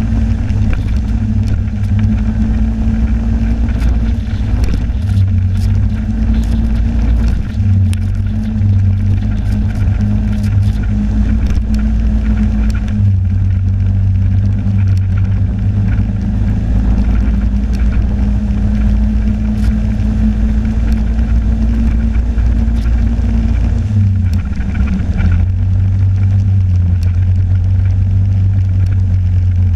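Snowmobile engine running at trail speed, a steady low drone whose pitch steps down and back up a couple of times as the throttle changes, with scattered clicks and rattles.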